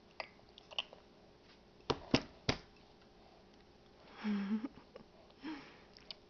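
Baby eating in a high chair: a few sharp clicks and taps, the loudest three close together about two seconds in, then two short low grunts near the end.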